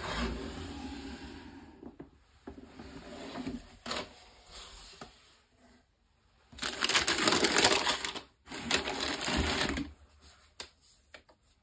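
Tissue paper crinkling and rustling as it is folded back and a sneaker is lifted out of a cardboard shoebox, in several stretches, the loudest in the second half. Lighter handling sounds and a few small taps come between and near the end.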